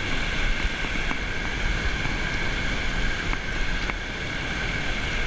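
Small waves washing in over sand in shallow surf, with wind rumbling on the microphone.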